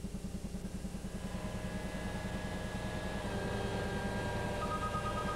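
Pierce quint fire truck's engine running, speeding up from low idle to high idle after the high idle switch is thrown, growing louder over the first few seconds and then holding steady. A fast repeating high tone starts near the end.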